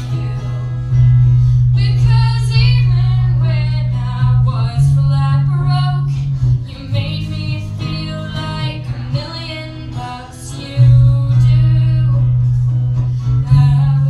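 A girl singing a song live with electric guitar accompaniment, her voice wavering with vibrato over strong, held low notes.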